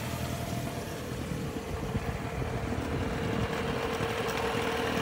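Small boat's 15 HP outboard motor running steadily at low speed: a steady hum over a low rumble.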